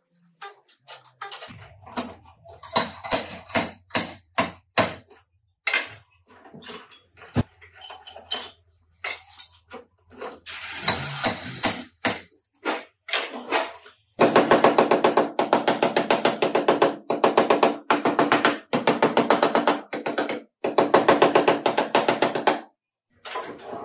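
Body-repair tool work: a run of sharp, uneven taps and knocks, then from about halfway, repeated second-long bursts of a rapid buzzing rattle.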